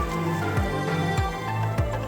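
Background music with a steady beat about every 0.6 s over held low notes.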